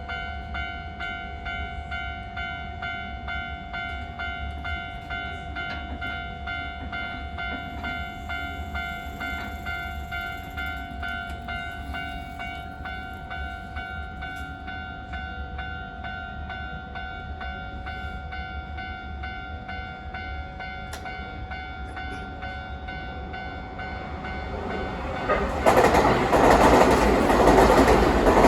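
Japanese railway level-crossing alarm bell ringing steadily with its repeating electronic ding. About 25 seconds in, a train arrives and passes over the crossing, loud enough to drown the bell.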